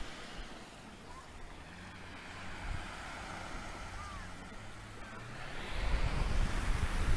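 Small waves breaking and washing up a sandy beach as a steady hiss. Wind buffets the microphone with a low rumble that grows much stronger about six seconds in.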